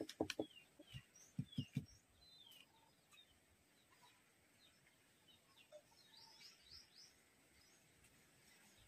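Faint chirping of small birds, a scatter of short falling chirps throughout, with a few soft knocks in the first two seconds.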